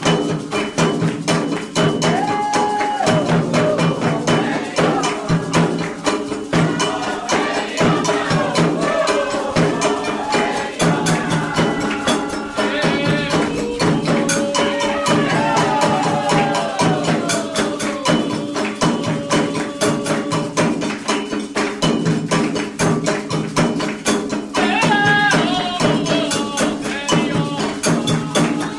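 Candomblé ritual music: atabaque hand drums and percussion keep a fast, dense rhythm throughout. Voices sing a gliding melody over it at times.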